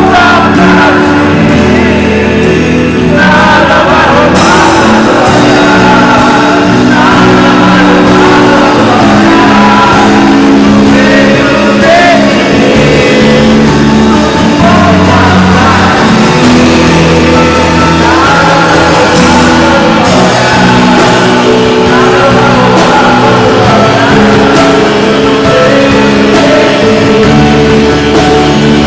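Live worship music from a full band: sustained chords, bass and drums, with singing over them.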